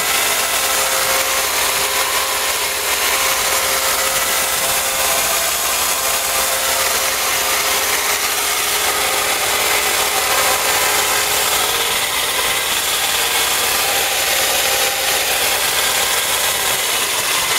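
Kalamazoo 2" x 48" belt sander running steadily, its motor and sanding belt making a loud even whir with a few steady tones. The belt has a defective side and wobbles as it runs.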